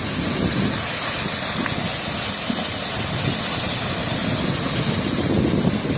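A car engine running as it moves through floodwater on the street, under a steady rush of water and wind noise.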